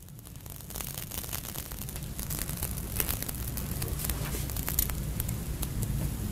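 Magnesium ribbon burning in air, a fizzing hiss dotted with many small crackles that grows gradually louder.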